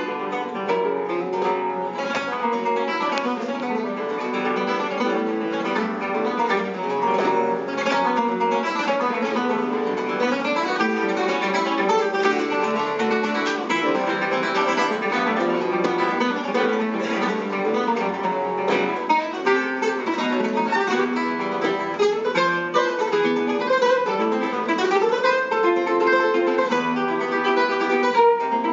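Background music: acoustic guitar playing a busy run of plucked notes.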